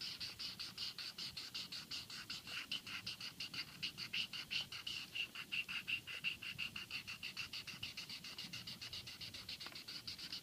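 Felt-tip marker scribbling rapidly back and forth on milk-carton cardboard: an even run of short scratchy strokes, about six a second.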